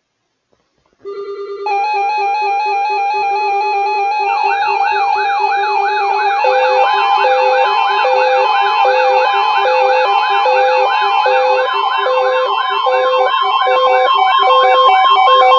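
Layered electronic siren and alarm tones building up. A pulsing low tone starts about a second in, and further steady tones are stacked on. A fast wailing siren sweep joins after about four seconds, then regular beeps after about six seconds, and the whole grows louder toward the end.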